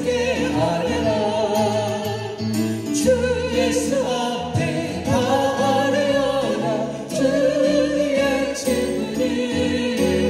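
Two women and a man singing a hymn in Korean into microphones, their voices in harmony with vibrato, over an instrumental accompaniment with sustained low bass notes.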